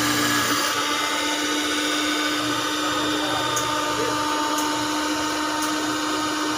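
Handheld electric cloth cutting machine running steadily with an even motor whine as it is guided through a stacked lay of fabric, with a few faint ticks in the second half.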